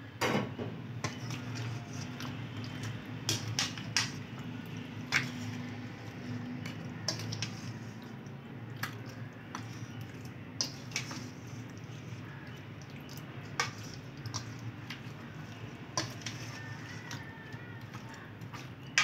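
Plastic spoon knocking and scraping against a stainless steel bowl while stirring raw meat chops in a thick wet marinade, with irregular clacks and wet squelching over a steady low hum.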